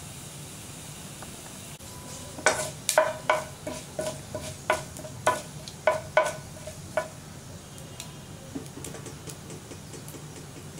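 Mustard and cumin seeds sizzling in hot oil in a nonstick frying pan. From about two seconds in, a wooden spatula stirs the seeds, and for some four seconds there is a run of a dozen or so sharp clicks ringing off the pan; after that come fainter crackles as the mustard seeds splutter.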